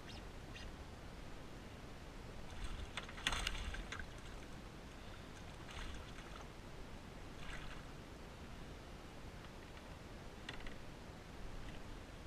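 Water splashing as a hooked bass thrashes at the surface beside a kayak and is grabbed by hand. A series of short splashes, the loudest about three seconds in.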